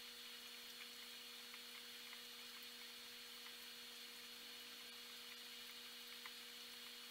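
Near silence: a faint steady hum with a high hiss and a few faint ticks, from aquarium equipment running.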